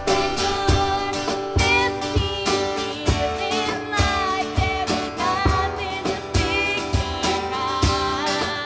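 Live band playing a song: a woman singing over strummed acoustic guitar, a second guitar and drums keeping a steady beat.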